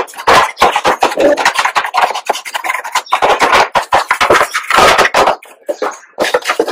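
Scrubbing and rubbing on the wet plastic casing of an air-conditioner indoor unit, a rasping sound in quick repeated strokes that drops off for about a second near the end.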